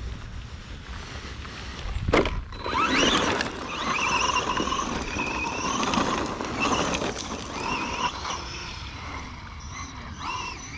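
Redcat Camo TT Pro RC truck's brushless electric motor and drivetrain whining, the pitch rising and falling as the throttle is worked. A sharp knock comes about two seconds in, just before the whine starts.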